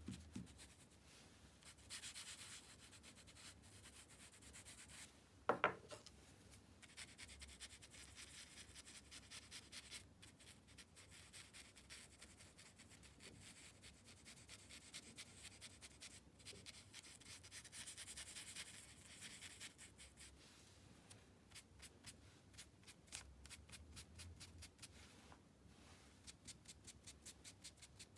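Charcoal and a brush rubbing and scrubbing on paper in faint, hissy strokes, turning into quick, closely repeated short strokes near the end. One brief sharp knock about five and a half seconds in is the loudest sound.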